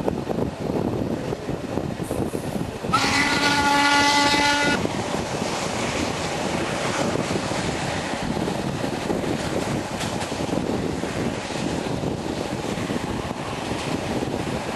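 Steam locomotive BDZ 46.03 sounding its whistle once, a blast of several tones at once lasting nearly two seconds, over the steady running noise of the moving train.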